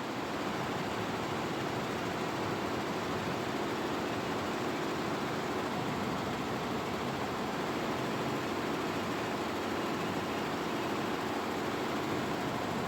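Multi-head computerized embroidery machine running and stitching, a steady, even mechanical noise with no pauses.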